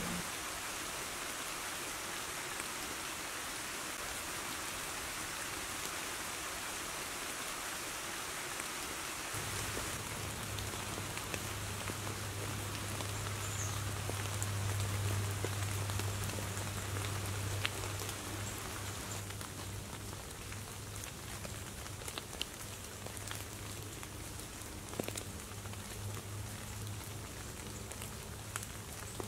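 Steady rain falling in woodland, an even patter with scattered individual drops standing out. A low steady hum joins in about nine seconds in.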